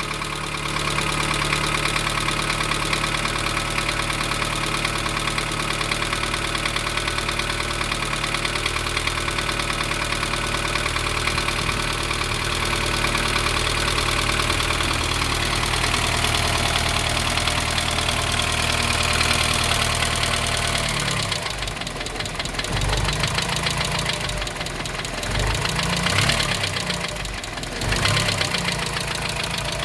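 Dacia 1310's four-cylinder pushrod petrol engine idling soon after a cold start, with a steady knock that new bearings have not cured; the owner does not know where it comes from. In the last several seconds the engine speed rises and falls a few times.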